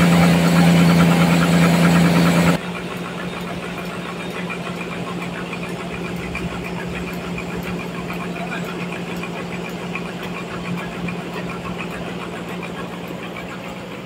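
Band sawmill running loud with a strong steady hum. About two and a half seconds in, it drops suddenly to a quieter steady machine hum with a light regular ticking.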